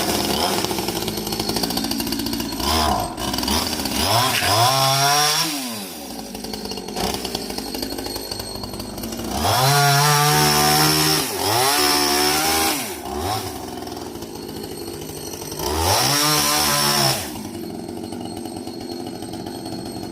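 Small chainsaw engine running, revved up and back down about four times with idling in between, and ending at a steady idle.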